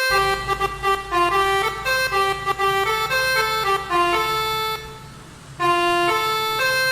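Basuri telolet air horn on a bus, playing a quick melody of several tones at once, the notes changing several times a second. It drops away briefly about five seconds in, then carries on.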